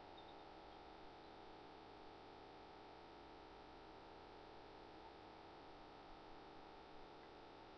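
Near silence: a steady faint hum and hiss, with a few very faint ticks.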